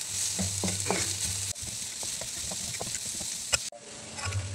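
Sliced shallots, garlic and chillies sizzling in hot oil in a wok while a spatula stirs and scrapes them around the pan, with scattered clicks of the spatula on the wok. This is the spice base being sautéed until it wilts. The sound drops abruptly and becomes quieter near the end.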